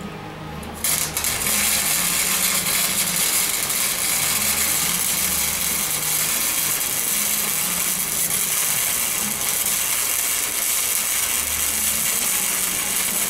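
Electric arc welder striking an arc about a second in and holding a steady weld bead, with a dense crackling hiss, while a cut-down steel socket is welded onto a swivel extension.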